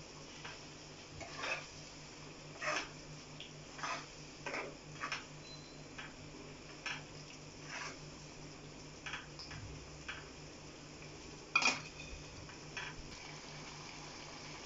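Steel ladle stirring baby corn through a thick gravy in a nonstick kadai: irregular clicks and scrapes of metal on the pan, with one louder knock about three-quarters of the way in.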